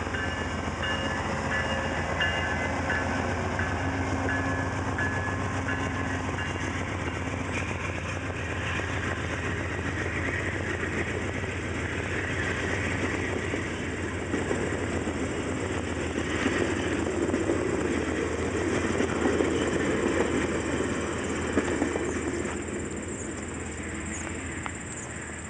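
VIA Rail passenger train passing close by: the GE P42DC locomotive's engine at the start, then the steady rumble of the passenger cars' wheels on the rails. The sound eases near the end as the last car goes by.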